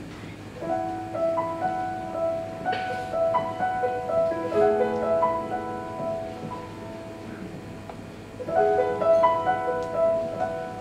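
Keyboard played with a piano sound, picking out the song's opening chords in slow, ringing notes. The phrase dies down about six seconds in, then starts again about two seconds later.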